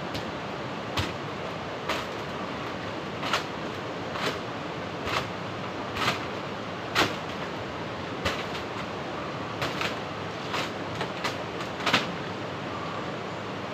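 Steady rush of water, with irregular sharp knocks about once a second.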